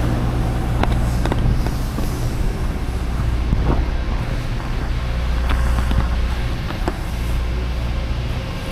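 Semi truck's diesel engine running steadily with a low hum, with a few light clicks or rattles scattered through.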